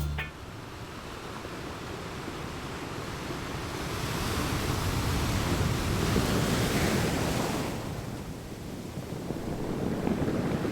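Gulf surf washing up on the beach, with wind buffeting the microphone as a steady low rumble. A wave swells louder about four seconds in and fades away near eight seconds, and another builds near the end.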